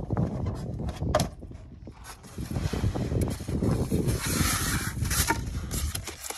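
Cardboard box and styrofoam packing inserts being handled and shifted, with irregular scraping and rubbing. There is a brighter stretch of rubbing about four to five seconds in.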